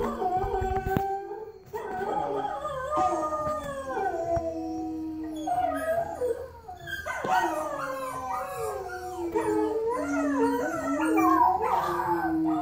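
Dog howling: long wavering howls that slide up and down in pitch, with short breaks about a second and a half in and around six seconds in, and several howls overlapping in the second half.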